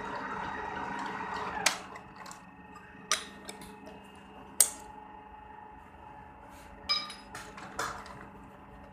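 A lathe running with a steady hum that drops away after a sharp click about two seconds in, followed by four separate sharp metallic clicks and knocks, one of them ringing briefly.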